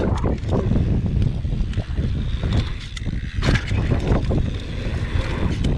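Wind buffeting an action camera's microphone while riding fast down a dirt jump line on a mountain bike, with the tyres rumbling over packed dirt and the bike rattling. A sharper clatter comes about three and a half seconds in.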